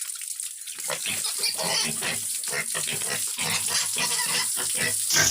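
Pigs grunting irregularly, with water running steadily in the background.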